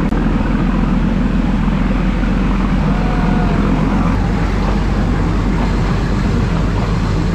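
Nilgiri Mountain Railway toy train running, heard from aboard a carriage as a loud, steady rumble.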